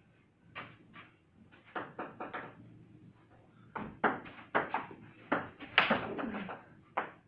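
Table tennis ball clicking off bats and the table in a rally: a quick, uneven run of sharp taps, busier and louder in the second half, with the loudest hit about two-thirds of the way in.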